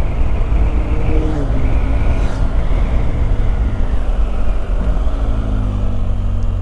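BMW R1250GS boxer-twin engine running under a heavy rumble of wind on the microphone while riding, the bike slowing for a bend.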